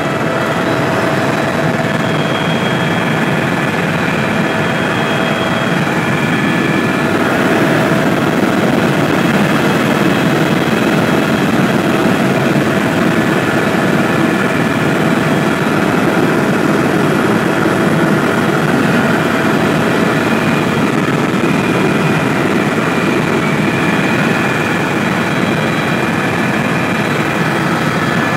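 Helicopter engine and rotors heard from inside the cabin: a loud, steady drone with a constant whine over the rumble.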